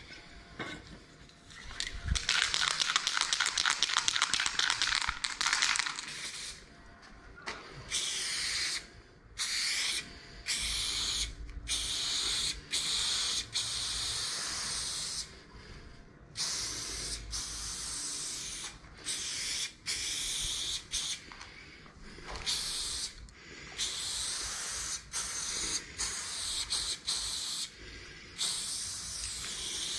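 Aerosol spray paint can hissing in repeated bursts of one to two seconds with short breaks between, as lines are sprayed on a wall. A louder stretch of rapid clicking comes about two to six seconds in.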